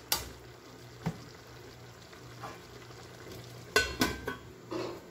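Metal ladle knocking and scraping against an aluminium pan of simmering stew, with a faint sizzle. About four seconds in, the aluminium lid clatters onto the pan in a few quick knocks with a brief metallic ring.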